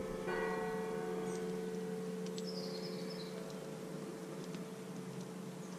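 A faint metallic ringing, like a bell, starts about a third of a second in and fades out over a couple of seconds. A steady low hum runs beneath it.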